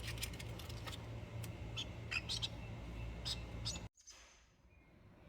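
Small pet birds giving soft, short, high chirps and clicks over a low steady hum; the sound cuts off suddenly to near silence about four seconds in.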